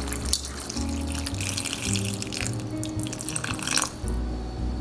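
Water poured in a stream into a pot of vegetables and pasta, splashing steadily, then stopping abruptly near the end. Background music plays throughout.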